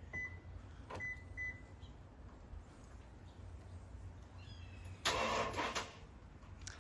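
Short high electronic beeps three times in the first second and a half, then about five seconds in a brief harsh burst of just under a second as the Toyota Tundra's starter tries to crank on remote start and fails to start the engine. The owner suspects a weak battery.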